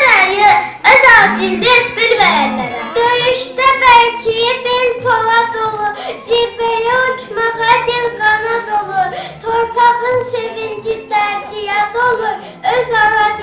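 A child singing a slow melody unaccompanied, the voice holding long notes that waver gently.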